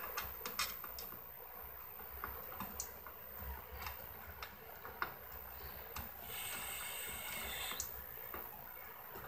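Scattered small clicks and taps from hands handling parts inside a cassette deck's metal chassis, with a scraping sound lasting about a second and a half about six seconds in.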